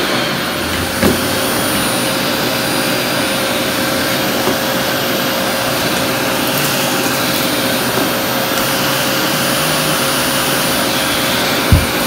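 Canister vacuum cleaner running steadily as its floor head is pushed across a wooden floor: an even rush of suction noise with a steady tone through it, and a few brief knocks, two of them near the end.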